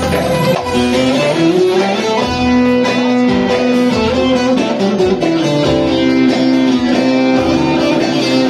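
Instrumental break of Turkish folk music: a bağlama (long-necked saz) plucked through a melody, with electronic keyboard accompaniment holding sustained notes.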